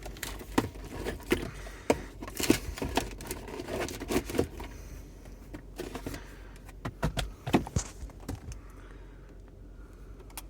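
Scattered clicks, taps and light knocks at an uneven pace, thinning out near the end.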